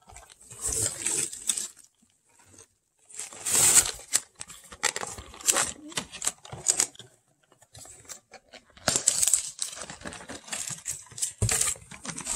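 Packing paper and bubble wrap rustling and crinkling as boxes are handled and lifted out of a cardboard shipping box, in bursts with brief pauses about two seconds in and again around seven seconds.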